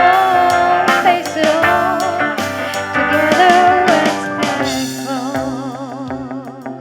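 Live band playing a slow jazz-style instrumental passage, with drums under a lead line that slides and bends between notes. Near the end it settles on a held, wavering note that grows fainter as the song winds down.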